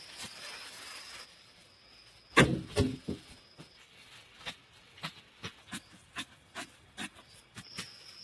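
A digging tool striking the ground: one heavy thud about two seconds in, then short knocks at an even pace of about two a second as the soil is chopped loose.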